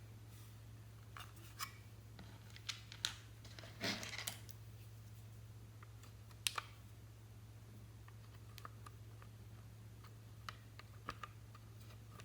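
Slime being squished and stretched by hand, giving scattered sticky clicks and pops, with a short crackling cluster about four seconds in and a sharp double pop a couple of seconds later.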